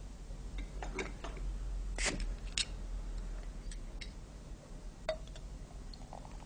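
Light clicks and knocks of small objects being handled at a bedside, about seven of them scattered irregularly, the sharpest about two seconds in. A steady low hum lies underneath.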